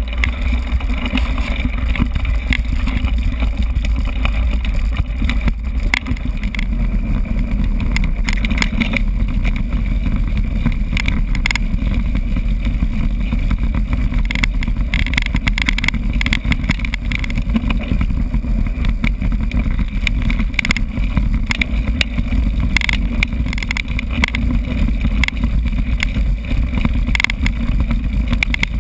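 Mountain bike ridden over a bumpy grass track, picked up by a GoPro mounted on the bike: a steady low rumble with constant rattling and clatter from the bike over the bumps.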